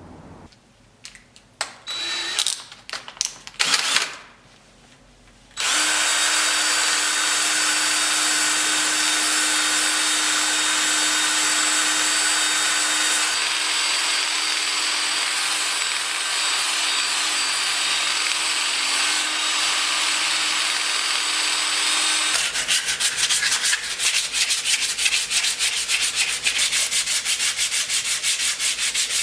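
Sanding wood: a few short bursts of a power tool in the first seconds, then a power sander running steadily with an even hum for about sixteen seconds, then a quick run of rapid, even rubbing strokes on the wood.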